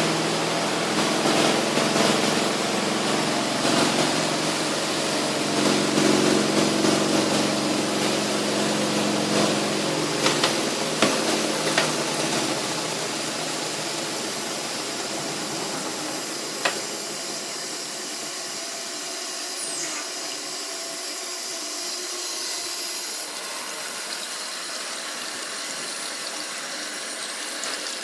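Superbrite twin tub washing machine motor running with a steady hum, then winding down and fading out between ten and sixteen seconds in, with a few clicks. A steady rushing hiss carries on after it.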